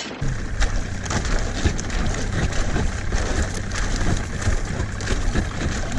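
Boat motor running with a steady low hum, under a dense crackle of ice cracking and crunching as the boat breaks through the shore ice.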